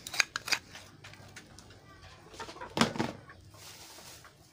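Pigeons cooing, with a few sharp clicks in the first half second and a louder knock about three seconds in.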